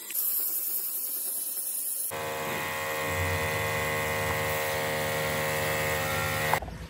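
A motor-driven machine running with a steady, even hum, after about two seconds of high hiss, then cutting off suddenly near the end.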